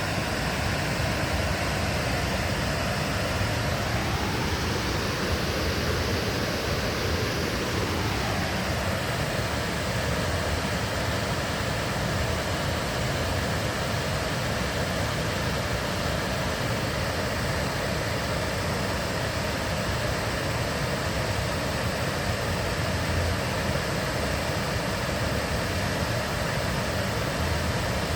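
Ganja River's water rushing with a steady, even noise. A faint tone rises and then falls away between about four and eight seconds in.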